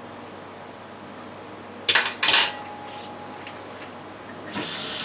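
A metal spoon clanking twice against a cooking pot, the second strike ringing briefly. A soft hiss follows near the end.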